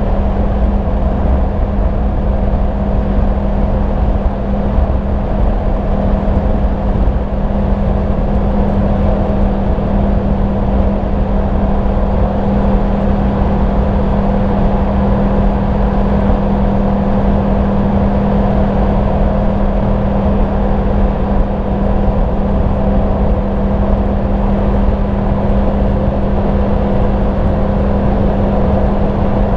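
Yamaha MT-10 SP's crossplane inline-four engine running through its stock exhaust while riding at a steady speed; the engine note holds one pitch throughout.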